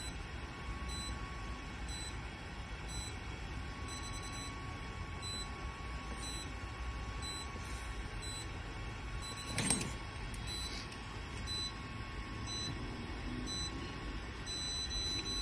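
K-Laser class 4 therapy laser emitting short high beeps at regular intervals while it delivers a laser acupuncture dose, with a faint steady tone beneath. A steady low background rumble runs throughout, and there is one sharp click just before ten seconds in.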